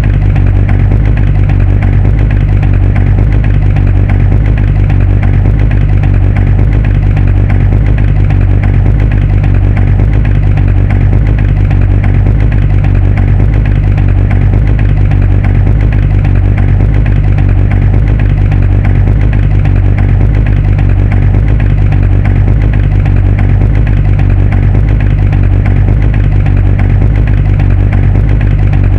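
Muscle car engine idling steadily, with an even pulsing beat and no revving.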